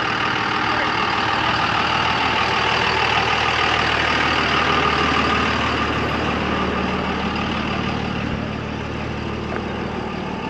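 A car engine running steadily with a low hum under a steady rush of noise, easing off a little about eight seconds in.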